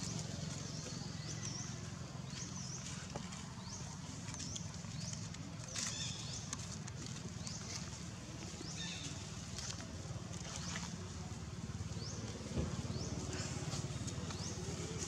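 Outdoor ambience: a steady low rumble with short, high, rising chirps about once a second.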